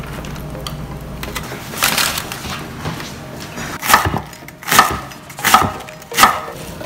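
Chef's knife shredding cabbage on a wooden cutting board: four sharp cuts through the leaves onto the board, a little under a second apart, in the second half.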